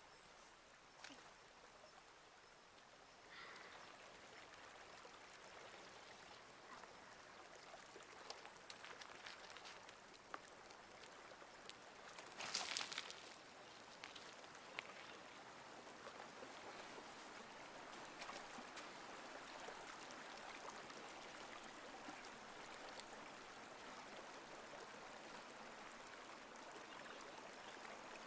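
Faint, steady running water of a mountain stream over rocks, coming up a few seconds in, with a brief louder rush of noise about twelve seconds in.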